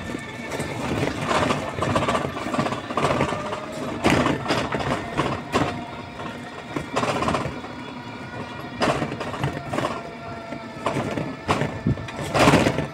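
Small handlebar-steered three-wheeled vehicle running along a street: a steady drive hum under frequent irregular knocks and rattles from its body and frame over the road surface, the loudest clatter near the end.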